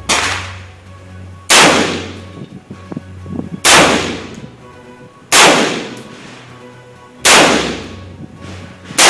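Gunshots fired one at a time at a steady pace: six shots about two seconds apart, each trailing off in a short echo.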